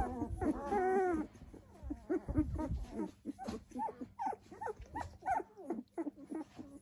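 Dalmatian puppies, 13 days old, squeaking and whimpering in a string of short high cries, with one longer cry about a second in that rises and falls in pitch. A puppy is being roused from sleep by handling.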